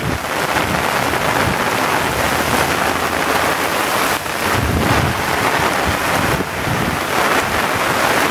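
Heavy, steady rain pouring down in a torrential downpour, with wind rumbling on the microphone.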